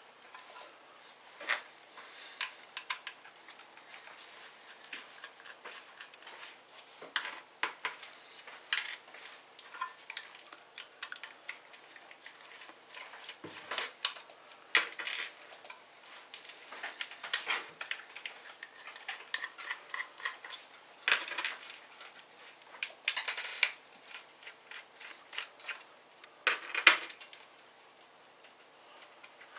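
Small tools and the hard plastic and metal parts of an ASUS F541 laptop being handled and worked on: irregular clicks, taps and short scrapes, with a sharper clatter near the end.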